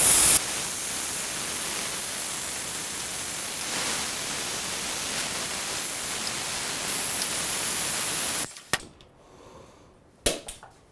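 Compressed-air vacuum brake bleeder hissing steadily while it sucks brake fluid and air out through a motorcycle's front brake caliper, loudest in the first half second. The hiss cuts off suddenly about eight and a half seconds in, and two short knocks follow.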